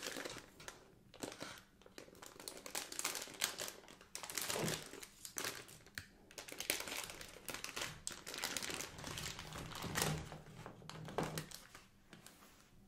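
The wrapper of a packet of wine gums crinkling and rustling in repeated bursts as it is opened and handled.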